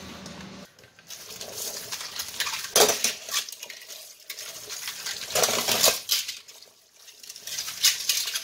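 Dishes being washed by hand in a soapy stainless-steel sink: a glass and ceramic plates scraped, scrubbed and knocked together. There are irregular clinks and clatters, the loudest about three seconds in, about five and a half seconds in, and near the end.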